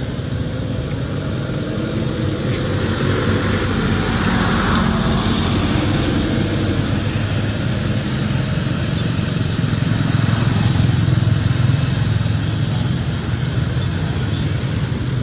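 Motor vehicle traffic running nearby, with a motorcycle among it, over a steady background noise. It grows louder about ten seconds in.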